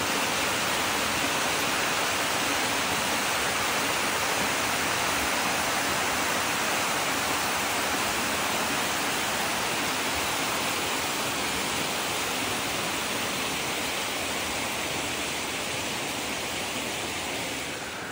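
A small waterfall cascading down a rock face into a pool: a steady rush of falling, splashing water.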